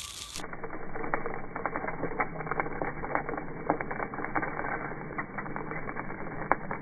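Handheld battery-powered Scotts Wizz spreader running: a small motor whirring steadily while granular fertilizer ticks and clicks irregularly against the spinning disc as it is flung out.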